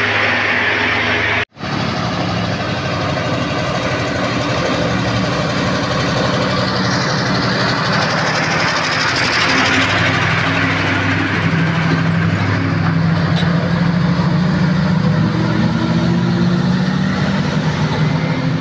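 Heavy cargo trucks' diesel engines running steadily with a low drone as the trucks drive past close by. The sound cuts out abruptly for an instant about a second and a half in, then the engine noise carries on.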